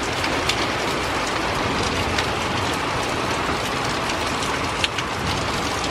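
Rain falling steadily but easing off as a thunderstorm passes, with scattered close drops ticking through the even hiss.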